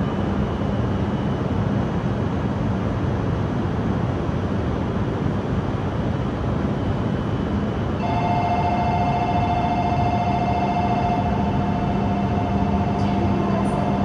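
Steady hum and whir of a stationary E5 series Shinkansen's onboard equipment at the platform. About halfway through, a steady electronic tone starts abruptly and keeps sounding.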